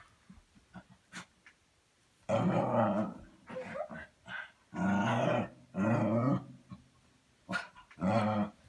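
A playing dog making loud, drawn-out growly vocalizations: four of them, each up to about a second long, with faint small clicks in between.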